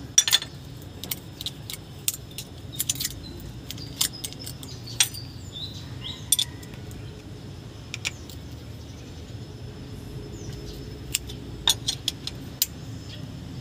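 Metal hand tools clicking and tapping irregularly against the rocker arms of an engine's valve gear: a ring spanner, screwdriver and feeler gauge in use while a valve's adjusting screw and locknut are set to the correct clearance. The clicks cluster in the first few seconds and again near the end.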